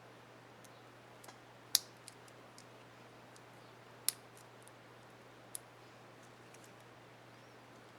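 Small sharp plastic clicks from a laptop keycap and its retainer clip being handled and snapped into place. The loudest comes a little under two seconds in, with others at about four and five and a half seconds and a few fainter ticks between, over a faint steady low hum.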